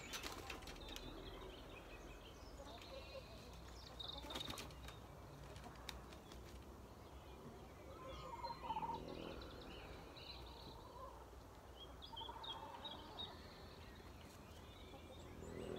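Small birds chirping and calling over and over, with one louder warbling call about halfway through. A brief flutter of wings comes right at the start and again about four seconds in.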